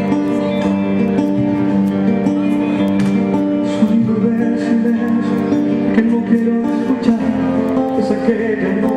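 Music with acoustic guitar, carrying steady held notes throughout.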